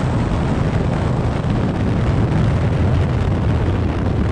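Straight-piped Polaris RZR Turbo side-by-side running steadily as it drives over sand, a loud, even rumble mixed with wind on the microphone.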